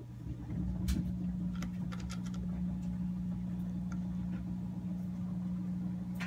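Scattered light clicks and taps from a phone being handled and positioned, over a steady low hum.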